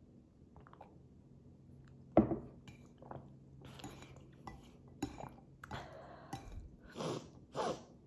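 A drinking glass set down on the table with a sharp knock, followed by chopsticks clinking and scraping against a ceramic plate as noodles are stirred and lifted.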